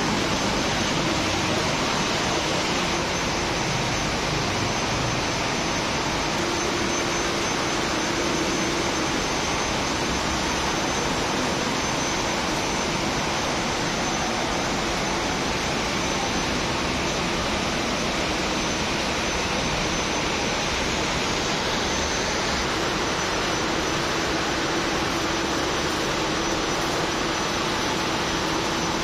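TIG welding: a steady, unbroken hiss at an even level, with no crackle or popping.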